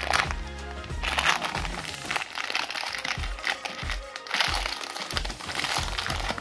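Clear plastic shrink-wrap crinkling and crackling in short bursts as it is pulled off a small cardboard box, over background music with a steady beat.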